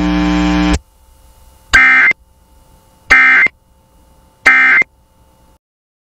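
Three Emergency Alert System end-of-message data bursts: the harsh two-tone digital squawk of the SAME code, each about a third of a second long and about 1.4 s apart, marking the end of the broadcast alert. Before them, a steady hum from the radio stream cuts off under a second in.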